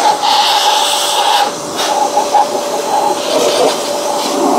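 Handheld electric blower running, a steady motor whine over rushing air, as it blows fine dust out of a robot vacuum's base station.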